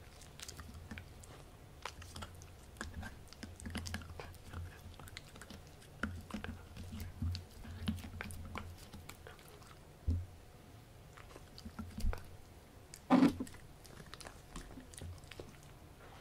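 Pomsky dog biting and chewing a dried pork chew: irregular crunchy bites and gnawing clicks, with one much louder bite about three-quarters of the way through.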